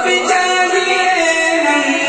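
A man's solo voice singing a naat, an Urdu devotional poem in praise of the Prophet, unaccompanied into a microphone. He holds long, drawn-out notes that slide downward in pitch.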